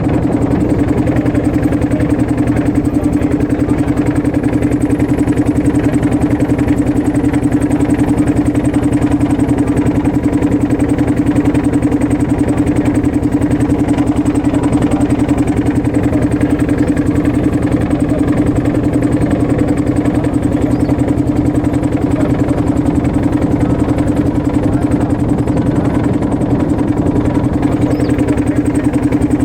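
Motorboat engine running steadily at a constant speed, a continuous drone with a strong low hum.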